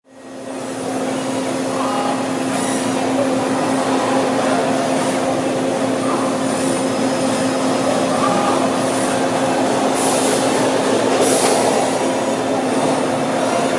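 CNC tube bending machine running through a bend cycle: a steady machine hum with a few faint short whirring glides as its axes move, and two brief hisses about ten and eleven seconds in.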